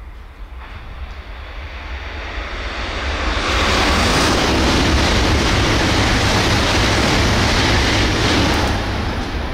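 Joetsu Shinkansen bullet train passing at high speed: a rushing noise with a deep rumble that builds over about three seconds, holds loud for about five seconds, then starts to fade near the end.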